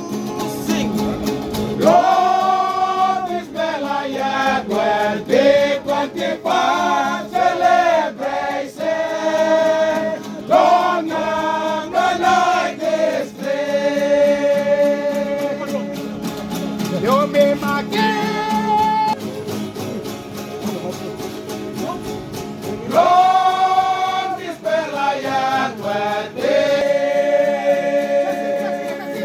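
Papua New Guinea string band music: a group of voices singing together in harmony over steadily strummed guitars.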